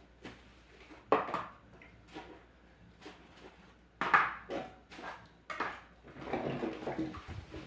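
Dishes being washed by hand at a kitchen sink: sharp knocks and clatters as pieces are handled and set down, about a second in and again around four and five and a half seconds in, the one near four seconds the loudest, then a stretch of sponge scrubbing near the end.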